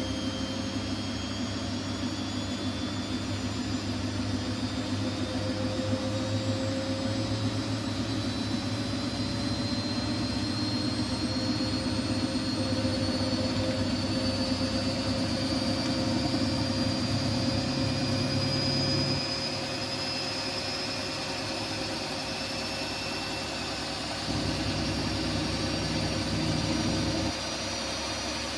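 Siemens Siwamat iQ washing machine spinning up: a motor whine climbs slowly and steadily in pitch over the drum's steady running. A low hum underneath drops away about two-thirds of the way through, comes back for a few seconds near the end, then cuts off.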